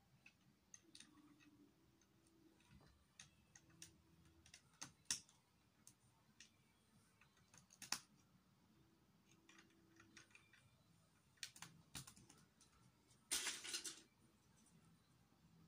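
Plastic Lego bricks clicking and tapping as they are handled and pressed together: faint scattered clicks, with a short louder rattle of bricks about 13 seconds in.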